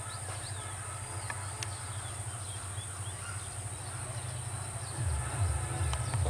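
Low rumble of an approaching diesel locomotive hauling a passenger train, growing louder about five seconds in, under a steady high-pitched insect drone.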